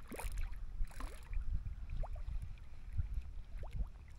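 Water lapping and knocking against a plastic fishing kayak's hull under a low, uneven rumble, with a few short rising squeaks.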